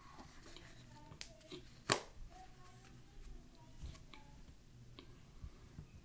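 Scattered light clicks and handling noise from a cardboard cornstarch canister and its plastic lid, with one sharper click about two seconds in.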